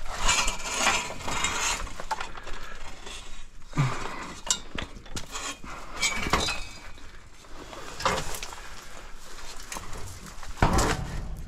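Scrap metal being handled, clattering and clanking: a rattle in the first couple of seconds, then separate clanks, one ringing briefly, and a heavier, loudest clank near the end.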